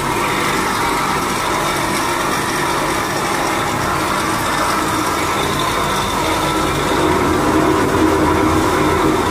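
Electric-motor-driven AAC block crusher machine running with a steady mechanical hum, a little louder near the end.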